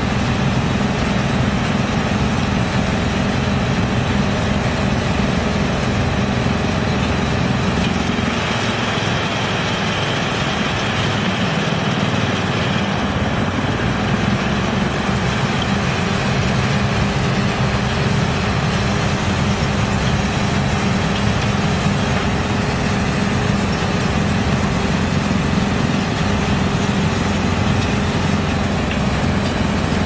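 YGX2113 drum wood chipper running steadily, its large electric motor and drum giving a loud, even mechanical drone, mixed with a diesel excavator's engine. Between about 8 and 14 seconds in, the low drone thins and a brighter hiss rises while wood goes through and chips pour out.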